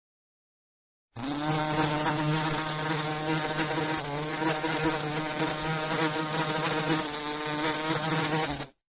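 Honey bee buzzing in flight, a steady droning hum that wavers slightly in pitch. It starts abruptly about a second in and cuts off just before the end.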